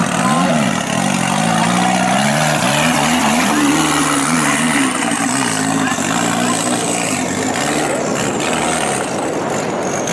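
The engine of a modified 4x4 off-road competition vehicle revs repeatedly as the car crawls over rutted dirt, its pitch rising and falling with each blip of the throttle. Near the end the note turns rougher and less distinct.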